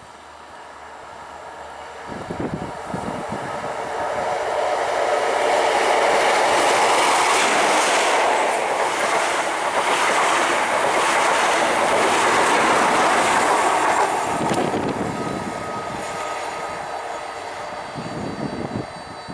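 Class 43 HST diesel power car and Mark 3 coaches passing along the platform. The engine and wheel noise builds as the train approaches, is loudest for several seconds in the middle as it goes by, then fades away.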